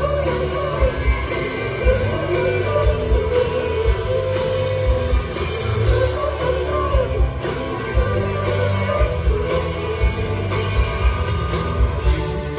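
Live rock band playing: electric guitars over drums with a steady kick, and a man singing.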